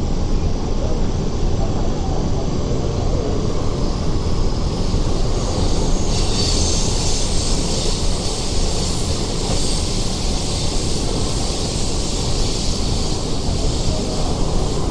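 MTR Tseung Kwan O Line train heard from inside the car while running between stations: a steady rumble of wheels on rail, with a higher hiss joining about six seconds in.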